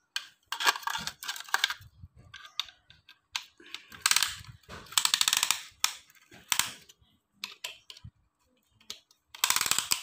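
Ratchet of a piston ring compressor clicking in several quick runs as its band is tightened around a piston.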